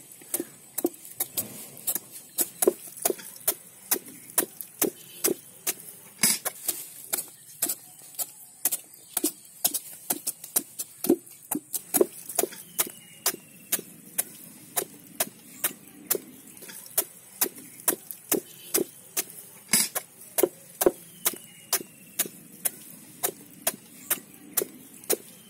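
Small cleavers chopping the rind off raw jackfruit: sharp knife strikes into the fruit, irregular and about two a second, from more than one cutter at once.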